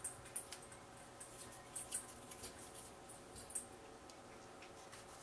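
Faint rustling and light clicks of cardstock and paper being handled and pressed into place, scattered over the first few seconds.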